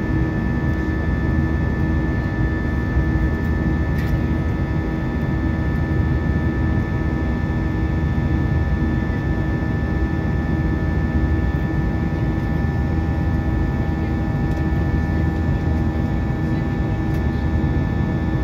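Steady in-flight cabin noise of an Airbus A320: a loud, even drone of the engines and airflow, with a faint steady whine on top.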